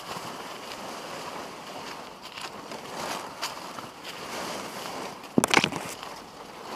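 Footsteps crunching and rustling through dry leaf litter and undergrowth on a trail, with a short, louder burst of crackling about five and a half seconds in.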